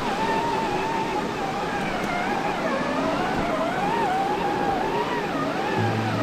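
Electric motor and drivetrain of an RC rock crawler whining, the pitch wandering up and down as the throttle is worked, over a steady hiss.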